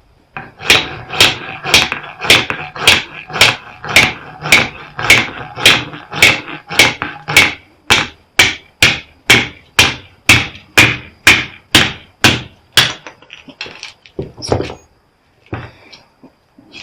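Hammer blows striking metal parts of an old welder being broken down for scrap, about two strikes a second in a steady run of some two dozen. A few slower, lighter knocks follow near the end.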